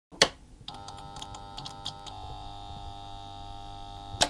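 Logo-intro sound effect: a sharp hit, then a steady humming tone with a few clicks in its first couple of seconds, closing with a second sharp hit near the end.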